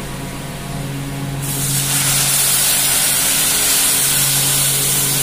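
Water poured into hot oil and frying spices in a kadai, bursting into a loud, steady sizzle with steam about a second and a half in, over a steady low hum.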